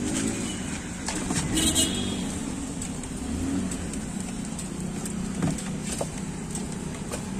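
Street traffic running steadily, with a brief louder rush about two seconds in and a few light taps and clinks of spice jars on the stall.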